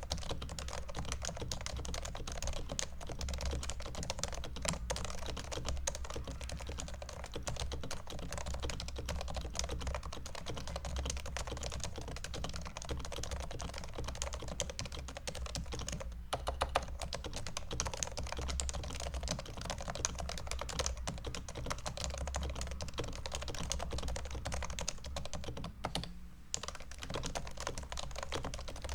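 Continuous typing on a Topre electro-capacitive keyboard, a Realforce 101 cut down to a winkeyless tenkeyless, with 45 g domes, lubed sliders, silencing rings and a steel plate: a steady stream of keystrokes, with short pauses about 16 and 26 seconds in.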